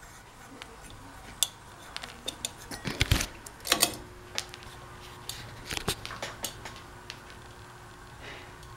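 Scattered clicks and knocks as the Kenmore Victorian copy ceiling fan is worked. About four seconds in, a steady low hum starts from the fan's motor, which is energised but barely turning.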